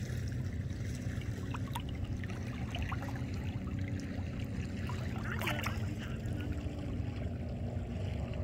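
Shallow water trickling and lapping over a steady low rumble, with faint scattered ticks and a short wavering cry about five and a half seconds in.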